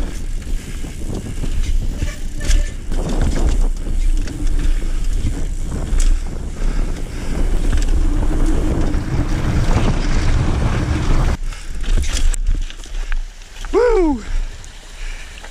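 Mountain bike descending a forest trail at speed: wind rushing over the camera microphone with tyre rumble and the rattle of the bike over rough ground. About eleven seconds in the noise drops as the bike slows, and near the end a short falling tone sounds.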